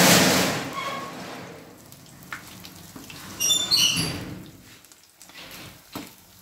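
Hot oil sizzling around breaded paneer lollipops shallow-frying in a kadai while a perforated metal skimmer turns them. The sizzle is loudest at the start and fades, swells again about three and a half seconds in with a few short high-pitched squeaks, then dies down.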